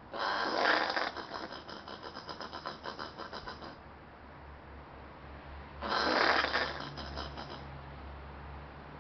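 An angry Australian possum gives two harsh, rasping calls. The first starts suddenly and breaks into a rapid rattling pulse for about three and a half seconds. A second, shorter call begins about six seconds in.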